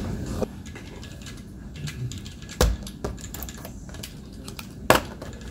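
Scattered keystrokes clicking on a computer keyboard, with two louder sharp knocks about two and a half and five seconds in.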